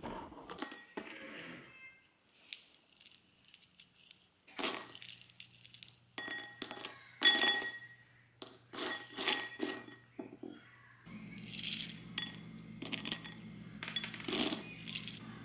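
Dry pinto beans poured and dropped by hand into a ceramic bowl, clicking and rattling against the bowl and each other in several spurts.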